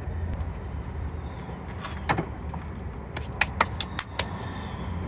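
Removed alternator being handled and set down on the engine: a sharp metallic click about two seconds in, then a quick run of clicks and clinks a little past three seconds, over a steady low background hum.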